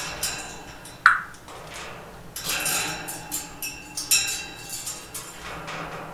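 Irregular small clicks, taps and clinks, like hard objects knocking together. A short, sharp falling squeak comes about a second in.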